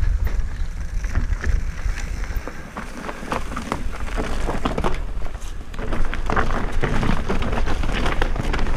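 Mountain bike riding down loose, rocky ground: tyres crunching over stones, with a dense run of clattering knocks from the bike, over a steady low rumble of wind on the microphone.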